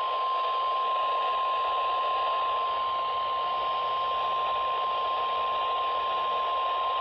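NOAA Weather Radio warning alarm tone: a single steady high tone near 1 kHz over a hiss of radio static. It heralds a severe thunderstorm warning broadcast.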